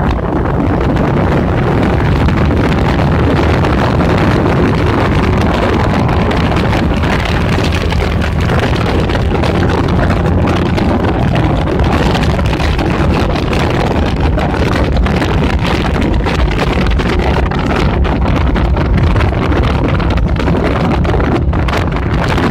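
Roadster motorcycle engine running steadily under way, with heavy wind rushing over the microphone.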